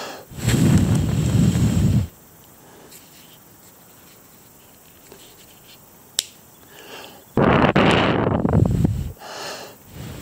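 Two long breaths blown hard at close range onto the glowing, smouldering edges of a fabric scrap, one at the start and one about seven seconds in, each lasting about two seconds, with a faint click between them.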